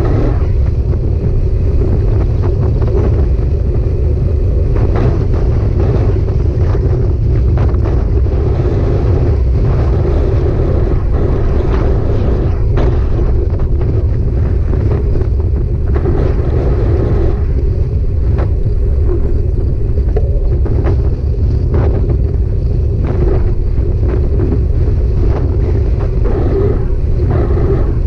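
Heavy wind rumble on the microphone of a moving bike, with a steady drone underneath and frequent small knocks and rattles from the ride.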